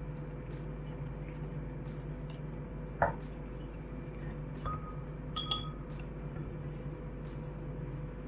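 A soft toothbrush scrubbing inside the probe well of a Bluelab pH pen, giving faint small scratches and plastic ticks. There is one sharper clink about three seconds in and a few lighter ticks a couple of seconds later.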